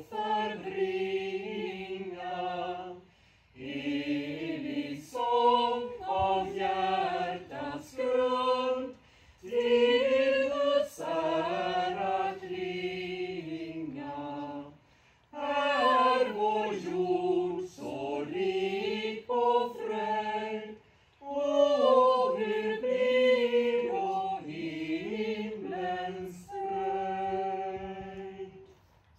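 Small choir singing a cappella, in phrases with short breaks between them; the last note is held and fades away near the end.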